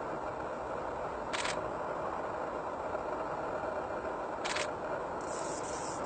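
Two short, scratchy chip notes about three seconds apart, from a male Anna's hummingbird, over a steady background hiss.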